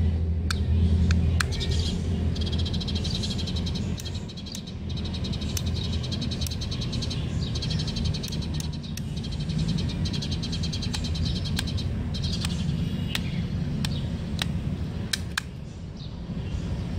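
Birds chirping in rapid trilling runs over a steady low rumble, with scattered sharp clicks.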